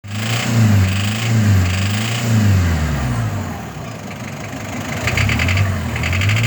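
Mazda WL-T 2.5-litre turbo-diesel engine running with an abnormal noise that the owner is asking mechanics to diagnose: a low hum that wavers in pitch, with a ticking that comes and goes about once a second.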